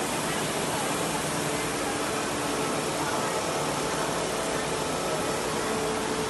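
Computerized quilting machines running on a factory floor: a steady mechanical hum and hiss with faint steady tones, without breaks.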